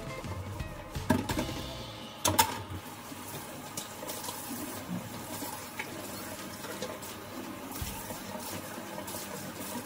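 Top-loading washing machine filling with water, a steady rush, with two sharp knocks about one and two seconds in while bedding is stuffed into the drum.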